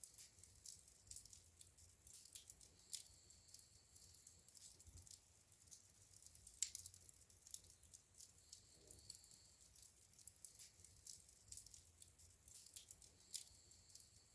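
Wood fire crackling in a fireplace: faint, irregular high-pitched crackles and ticks several times a second, with one sharper pop about halfway through.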